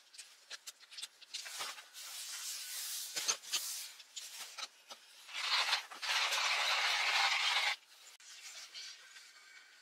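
Rustling and crinkling of a foil coffee-bean bag being handled, with small clicks and knocks on the table. About five seconds in comes a louder, dense steady rush lasting a couple of seconds that stops suddenly.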